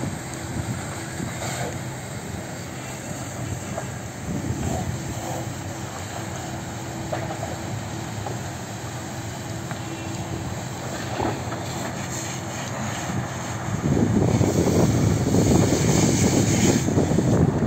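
Fire engine's motor running steadily as it drives the pump feeding the hose. A louder rushing noise takes over about fourteen seconds in.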